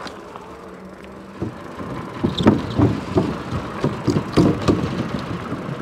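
Cyrusher Trax fat-tire electric bike rolling along with its 750-watt Bafang motor humming. From about a second and a half in, the bike rattles and knocks irregularly as it rolls over the bridge deck.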